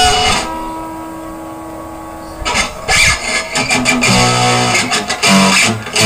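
Acoustic-electric guitar played through a small Signature guitar practice amplifier: a strummed chord rings out and fades for about two and a half seconds, then strumming and picked bass notes start again.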